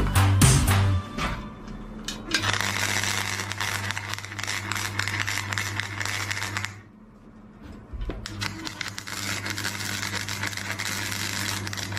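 MIG welder arc crackling steadily over a low hum, in two runs of about four seconds each with a short pause between them, as a welding gun joins the metal rim to the grid. Background music fades out in the first second.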